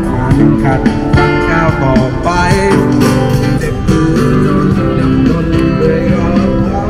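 Music with guitar and a singing voice.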